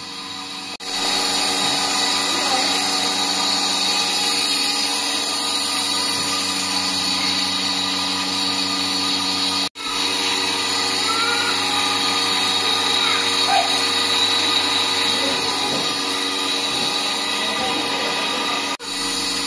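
Steady mechanical drone of a dairy milking machine's vacuum pump, holding one constant pitch, breaking off for an instant twice.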